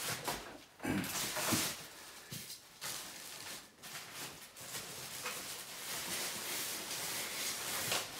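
Cardboard and plastic wrap rustling and scraping as drum packaging is pulled out of a cardboard shipping box, in a run of irregular crinkles and scuffs.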